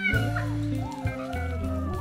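Background music with steady low held notes, with kittens mewing over it in short gliding calls.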